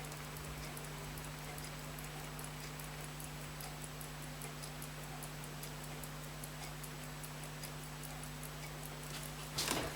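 Steady, fast, faint ticking of a clock or watch movement, about three ticks a second, over a low steady hum. Near the end comes a short louder clatter of small metal tools being handled.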